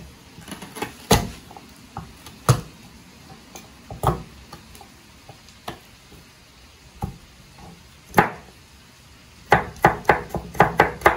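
A knife knocking on a cutting board a few times, then near the end chopping garlic in a quick run of about four chops a second.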